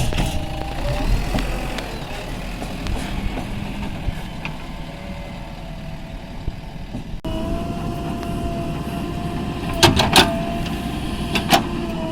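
JCB 3DX backhoe loader's diesel engine running steadily as it works, with a steady whine in the second part and a few sharp metallic clanks near the end.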